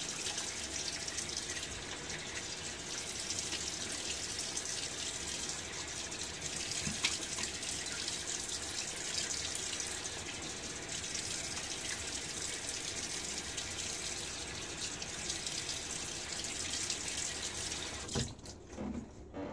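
Bathroom sink tap running steadily while a face is rinsed off with splashing hands. The water shuts off abruptly about a second and a half before the end.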